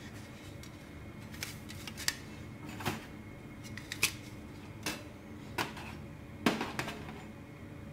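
A hinged stainless-steel folding windscreen being unfolded and set around a gas single burner: about eight light metallic clicks and clacks at uneven intervals, the loudest near the end.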